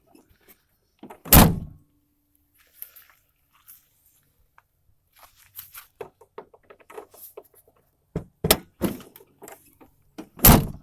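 Clicks and rattles of needle-nose pliers working the latch through a hole drilled in an Astro van's rear door, with two loud thunks from the door, about a second in and near the end.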